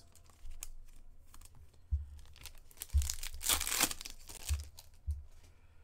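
Foil trading-card pack crinkling in the hands, then ripped open in one tear about three and a half seconds in. A few dull knocks come from handling on the table.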